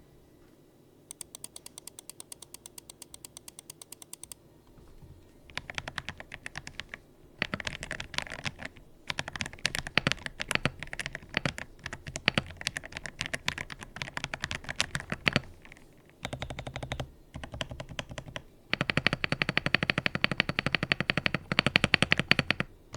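Typing on a mechanical keyboard with Akko Matcha Green V3 Pro linear switches: rapid keystroke clacks in bursts. It opens with a quieter, even run of clicks, and the fastest, loudest typing comes near the end.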